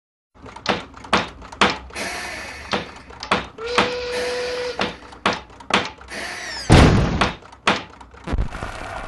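Animated sound effects of irregular knocks and clanks, like toy-workshop hammering, with a short steady tone about midway and a few squeaky falling sounds near the end. A soft low thump comes just before the end.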